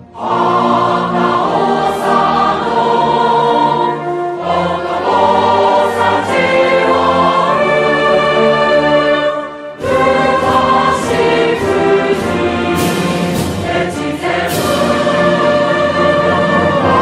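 Background choral music: a choir singing sustained chords, with a short break near ten seconds before the singing resumes.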